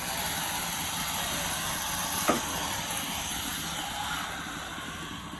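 Rechargeable handheld hot tub vacuum running in the water: a steady hiss that starts abruptly, with a single knock about two seconds in, easing slightly toward the end.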